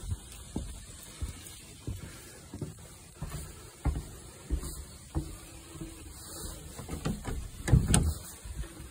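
Footsteps on wooden deck boards at a walking pace, about one and a half steps a second, with a louder thump near the end.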